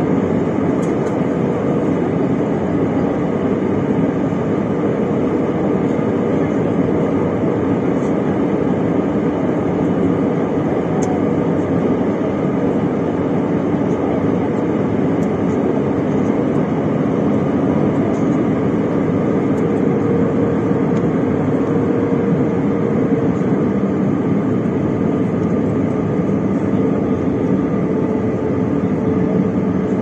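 Steady jet-airliner cabin noise heard from a seat over the wing: the engines running and air rushing past the fuselage as an even rumble, with a faint steady hum on top.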